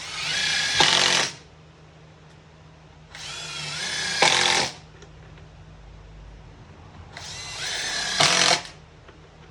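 Power drill driving #8 x 1.75-inch GRK screws into plywood shower-base sheathing, three screws in turn. Each is a rising motor whine about a second and a half long, ending in a louder burst as the screw seats.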